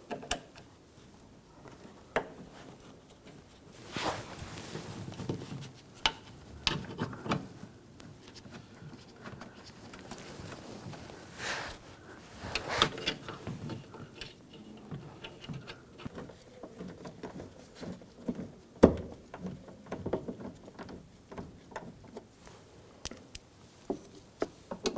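Scattered small clicks, taps and rustles of screws being started by hand into a car door panel, with one sharper knock about three quarters of the way through.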